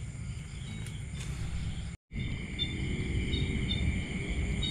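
Night insect chorus, crickets trilling steadily at several high pitches, over a low rumble. The sound drops out completely for a moment about two seconds in.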